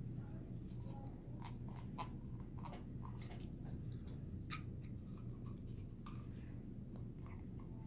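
Paperboard hexagon box pieces being folded and fitted together by hand: scattered soft crackles, creases and taps, over a steady low hum.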